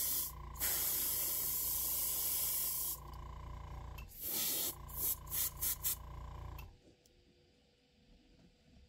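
Paint being sprayed onto a miniature: a long hiss of spray, then a shorter one and a rapid string of quick short bursts, over the steady hum and thin whine of a motor that cut off about two-thirds of the way through.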